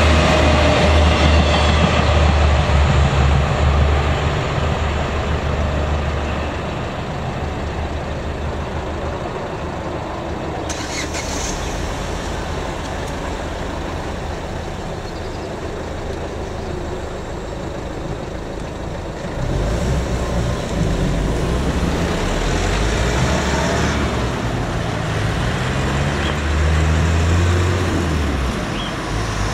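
The tail of a passenger train rumbles past, its diesel railcar engine fading over the first few seconds. After a quieter stretch, road vehicles start up and drive over the crossing from about two-thirds of the way in, one accelerating near the end.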